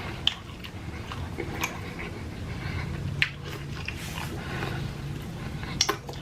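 Close-miked chewing and mouth sounds of a person eating, with scattered wet clicks and smacks. A low steady hum runs for a couple of seconds in the middle.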